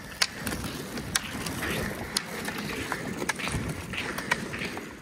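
Roller skis rolling on asphalt with a steady rush, and ski-pole tips clicking sharply against the pavement about two or three times a second as the skiers pole along.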